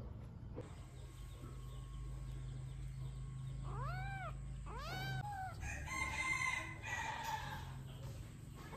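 Young tabby kitten meowing: two high, rising-and-falling meows about four and five seconds in, then louder, rougher cries around six to seven seconds in, and another meow at the very end.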